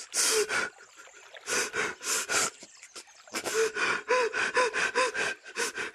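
A person's heavy, rapid breathing in gasps, some breaths catching on a short voiced sound, with two brief lulls, about a second in and near the middle.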